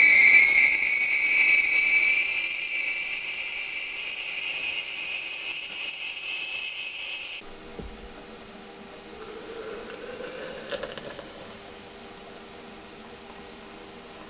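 Stainless-steel stovetop whistling kettle whistling at the boil: a loud, steady whistle that creeps slightly higher in pitch, then cuts off suddenly about seven seconds in as the kettle comes off the heat.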